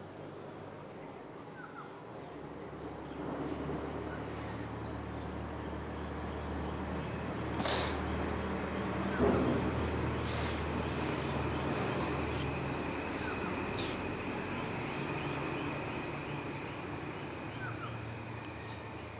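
A low, steady mechanical rumble that swells about two seconds in and slowly eases off, with two short sharp clicks near the middle.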